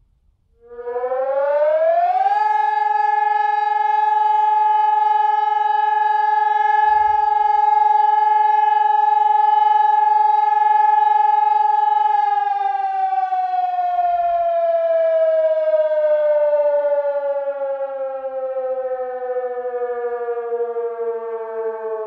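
SES 2400 electronic siren sounding a test alarm. It starts just under a second in with a quick rising sweep, holds one steady tone for about ten seconds, then glides slowly down in pitch like a motor siren running down.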